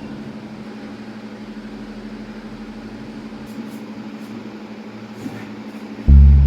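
A steady machine hum with a quick, even pulse. Near the end, music starts abruptly and loudly.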